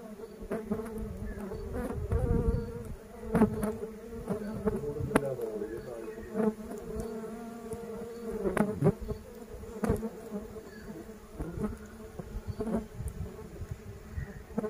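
Stingless bees buzzing in a cloud around their opened nest, with single bees droning past close by, their pitch bending up and down as they pass. Several sharp clicks and knocks come from the nest board being handled.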